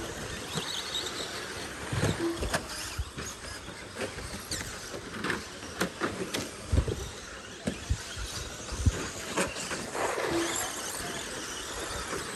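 Radio-controlled cars racing on a dirt track: motors whining up and down in pitch, with several sharp knocks and clatters from the cars.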